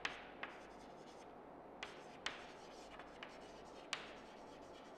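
Chalk writing on a blackboard: faint scratching of the chalk with several sharp taps as it strikes the board to start strokes.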